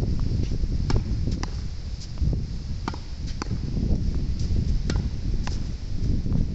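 Tennis ball being hit against a practice wall: sharp pops of racket and wall in pairs about half a second apart, repeating roughly every two seconds. Strong wind rumbles on the microphone throughout.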